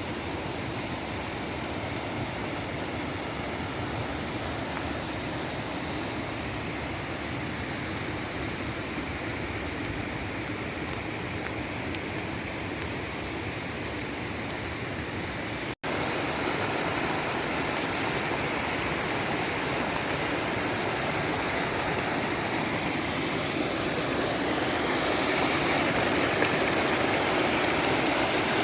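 Steady rain, a continuous hiss of falling and running water. It breaks off for an instant about 16 seconds in and comes back a little louder.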